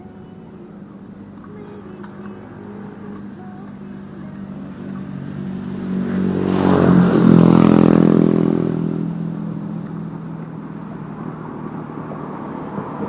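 A motor vehicle's engine passing close by: it builds, is loudest about seven seconds in with a drop in pitch as it goes past, then fades away.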